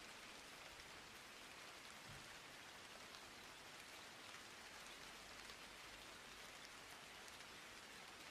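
Near silence: a faint, steady hiss with no speech or music.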